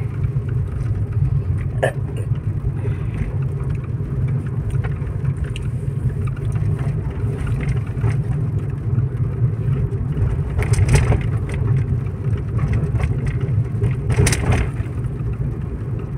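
Car on the move, heard from inside: a steady low engine and road rumble, with a few brief knocks or rattles.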